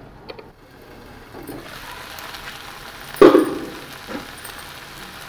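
Spiced potato and meat filling sizzling in a frying pan as the last of its water cooks off. The sizzle builds from about a second and a half in, with one sharp knock about three seconds in.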